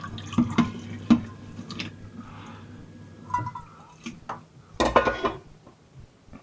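Washing up a small bowl in a stainless-steel sink with a dish brush: scattered clinks and knocks of the bowl and brush against the sink, with a louder clatter about five seconds in.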